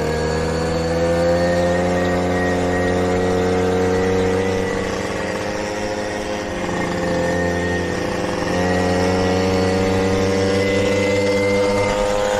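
Puch moped's small two-stroke engine running steadily at cruising speed, heard from on board the moving moped. It eases off a little about five seconds in and picks up again a few seconds later.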